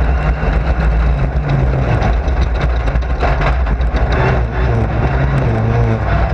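Racing car's engine running hard, heard from inside the car, its pitch rising and falling with the throttle, with a dense rattle of knocks.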